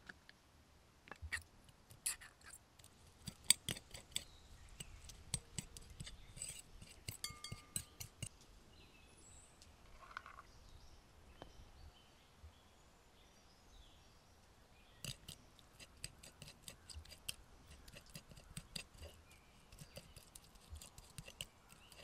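A metal fork clicking and scraping against a plastic mixing bowl and a small glass jar as anchovies are lifted out and mashed with capers. The clicks are quiet and irregular, thin out for a few seconds in the middle, then come thick again.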